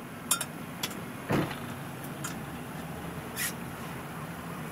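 Boat engine idling steadily, a low even hum, with a few scattered short clicks and a soft thump about a second in.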